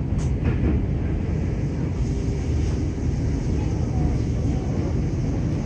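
Tokyo Metro 7000 series subway car running between stations, heard from inside the car: a steady rumble of wheels and running gear on the rails, with a few light clicks.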